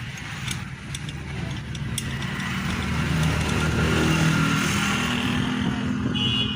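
A motor vehicle engine passing by, growing louder to a peak about four seconds in, its pitch falling as it goes past, with a few light clicks early on.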